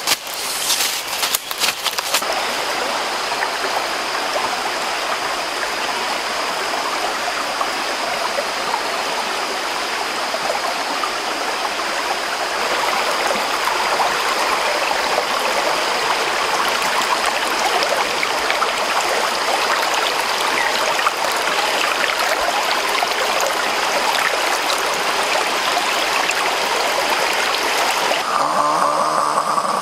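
Shallow stream running over rocks, a steady rushing, with a thin steady high tone above it. In the first two seconds there is crackling of footsteps through leaf litter and brush.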